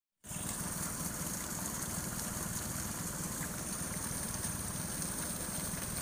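Small waterfall splashing down a rock face: a steady hiss of falling water over a steady low rumble.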